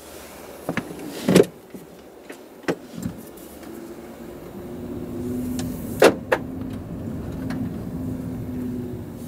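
Cabin noise inside a Renault ZOE electric car on the move, with tyre and road noise building as it picks up speed. A steady low hum joins the road noise about halfway through. A few sharp knocks sound, the loudest about a second and a half in and about six seconds in.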